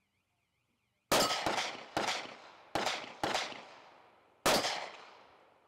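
About six shots from a SCCY CPX-2 9mm pistol, fired at an uneven pace over about three and a half seconds, each shot trailing off in echo.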